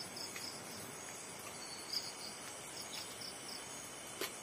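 Tropical forest insects chirping: rows of short, evenly repeated pulses over a steady high-pitched drone. A faint click sounds about two seconds in, and another near the end.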